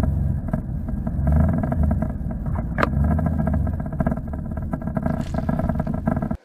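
Snowmobile engine running steadily under way, with one sharp click about three seconds in; the sound cuts off suddenly near the end.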